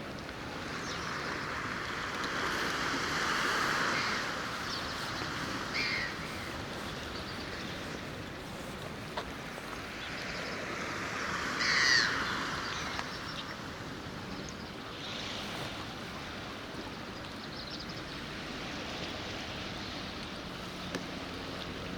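Waterside ambience: a steady wash of moving water with a few short bird calls, the loudest about twelve seconds in. A low, steady engine hum comes in near the end.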